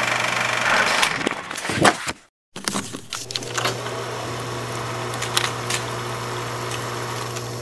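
Old film projector sound effect: a steady mechanical whir with the crackle and clicks of worn film. It cuts out for a moment about two seconds in, then resumes.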